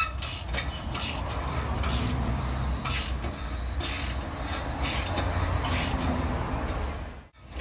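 Ratchet wrench on a long extension clicking at intervals of about a second as a stiff, long-unopened bolt on the exhaust-to-engine joint is worked loose, over a steady low rumble. The sound cuts out briefly near the end.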